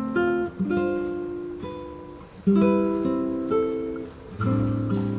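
Background music on a plucked string instrument: picked notes and chords, each ringing on, a new one every half second to a second.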